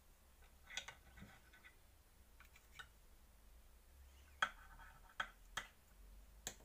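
Faint clicks and scrapes of a knife cutting through a cake topped with sliced almonds, the blade knocking against the serving plate; several separate clicks, the loudest about four and a half seconds in.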